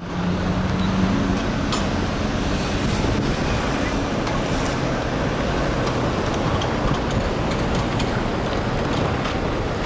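Urban street ambience: a steady rumble of road traffic, with a low engine hum for the first second or so and a few faint clicks.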